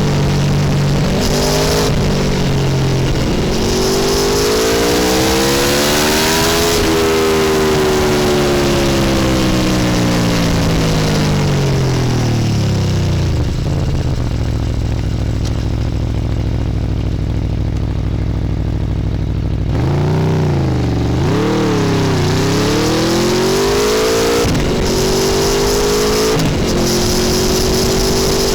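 Aprilia Tuono V4 1100 Factory's V4 engine accelerating through several gear changes, each upshift dropping the pitch before it climbs again. It then winds down in one long falling sweep, runs steadily at low revs for several seconds, and is blipped up and down before pulling away through the gears again.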